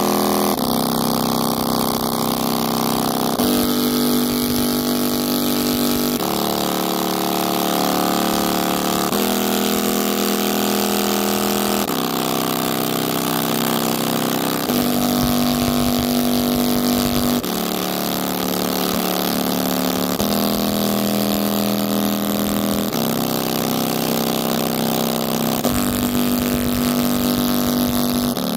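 JBL portable speaker playing a bass-heavy track at high volume, its pitch stepping to a new bass note about every three seconds. A dense, rough buzz rides over the music: the speaker is being driven hard through a tiny taped-on passive radiator pushed to large excursion.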